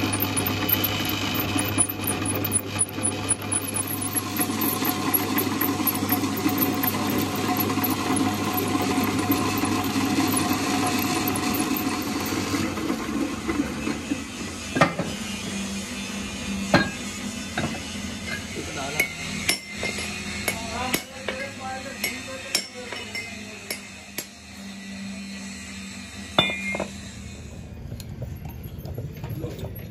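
Drill press running as a twist drill cuts into a steel hub flange, a steady motor hum with cutting noise, for roughly the first half. The machine then stops, and a series of sharp metallic knocks and clinks follows as the steel hub is handled and repositioned on the drill table.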